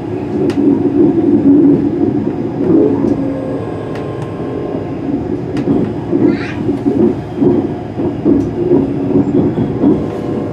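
Class 385 electric multiple unit running, heard from inside the carriage: a steady hum with sharp clicks every second or so as the wheels cross rail joints and points. A brief wavering squeal comes about six seconds in.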